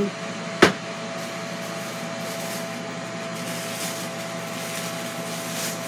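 Clear disposable plastic glove rustling as it is pulled onto a hand, with one sharp click about half a second in. Behind it runs a steady hum carrying a single thin tone.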